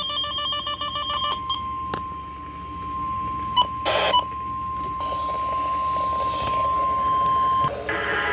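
Weather alert radio sounding an alarm. A warbling two-pitch beep stops about a second in, and then the long steady alert tone of a NOAA Weather Radio warning follows, here signalling a tornado warning. The tone breaks off briefly near the end, and there is a short burst of noise about four seconds in.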